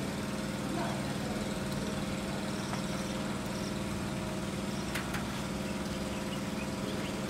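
An engine running steadily at idle, an even low drone that does not change, with a couple of faint clicks about five seconds in.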